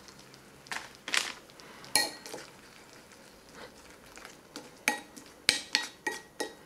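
A spoon stirring freeze-dried peas soaking in hot water in a ceramic bowl, knocking and clinking against the bowl's sides about a dozen times at uneven intervals, some clinks briefly ringing.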